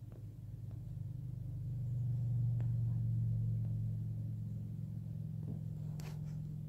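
A low, steady droning hum that swells over the first two seconds and then holds, with a few faint ticks.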